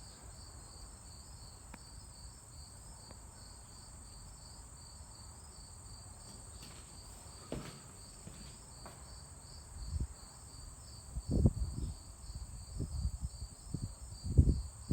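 Insects, likely crickets, chirping in a steady pulsing chorus. Several low thumps and knocks come in the last five seconds.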